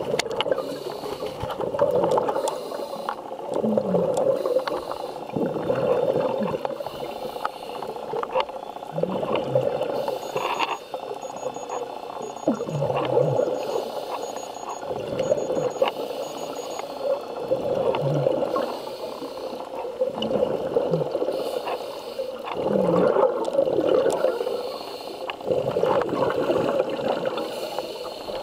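Underwater sound of a diver's breathing: bubbles gurgling and rushing in swells every two to three seconds, with short low bubbling sweeps.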